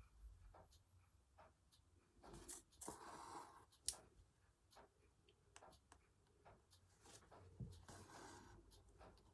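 Faint sounds of hand embroidery: thread drawn through fabric in two soft rasping pulls, with small clicks and taps of the needle, one sharper click about four seconds in.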